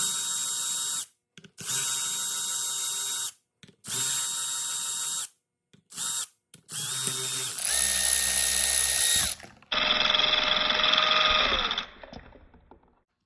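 Power tool motor running in short bursts, about six runs with pauses between, each a steady whine that winds down as it stops. This is the sound of the pre-loosened 10 mm bolts being spun out of a BMW M52 VANOS unit.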